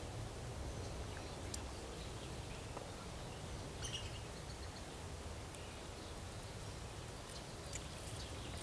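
Steady low background hum of a city, with a few faint, short bird chirps scattered through it, the clearest about four seconds in.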